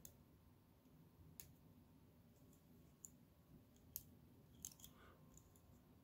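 Near silence, with a handful of faint, brief clicks as Cat6 wires are worked through a short piece of cable jacket to untwist them.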